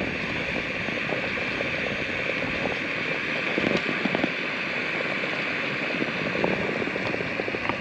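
A Jetboil gas camping stove burning with a steady hiss while water in its cup comes to the boil, with small irregular bubbling crackles throughout.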